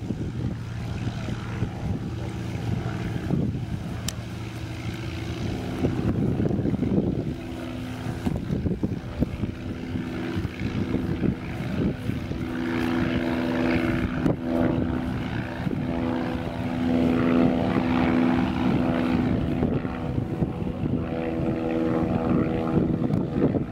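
Tow plane's piston engine and propeller running at takeoff power while aerotowing a glider into the climb. A steady droning note comes through more clearly and louder about halfway through.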